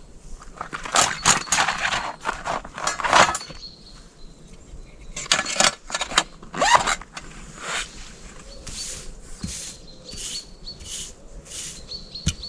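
Irregular rustling and crunching of camping gear being packed away, then a run of softer, even crunches about two a second near the end.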